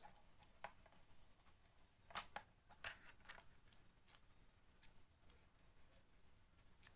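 Faint, scattered clicks and light taps of small hard pieces being handled: screwdriver bits and accessories being taken out of and put back into a plastic tool case, a few in quick succession in the middle.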